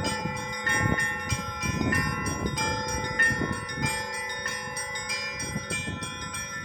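A set of church bells ringing together: quick, rhythmic strokes of smaller bells over the longer ringing tones of lower bells.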